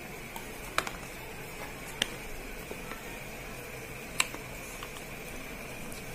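Cardboard phone-box inserts being handled: a few sharp clicks and taps, three louder ones spaced about a second or two apart, over a steady background hiss.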